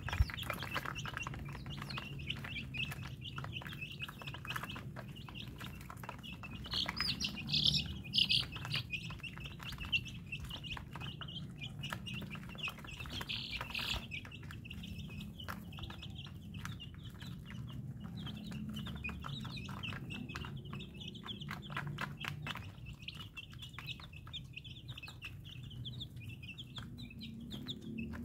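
A flock of young chicks peeping continuously, many short high cheeps overlapping, briefly louder about seven to eight seconds in.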